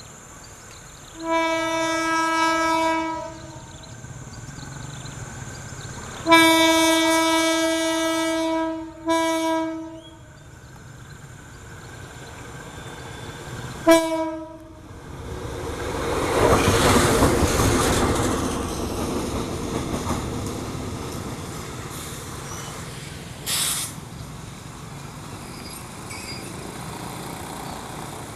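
KAI diesel locomotive horn sounding: a long blast, a longer blast with a short one straight after, then a brief toot. The locomotive then passes close by, its engine and wheels on the rails swelling to a loud peak and slowly fading, with a short hiss later on.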